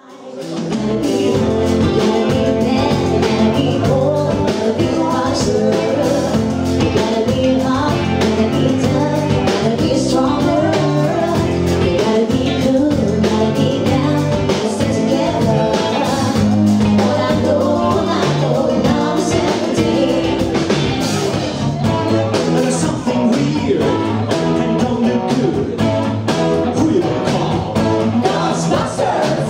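Live rock band playing a song: a female lead vocalist singing over electric guitars and a drum kit with a steady beat. The music fades in over the first second.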